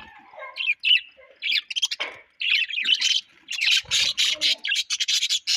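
Several birds chirping and squawking in quick, overlapping calls, growing into a dense chatter over the second half.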